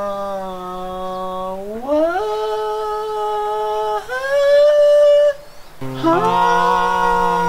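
Men humming long held notes. The pitch slides up to a higher note about two seconds in and higher again around four seconds. After a short break near six seconds, several voices hum a held chord together.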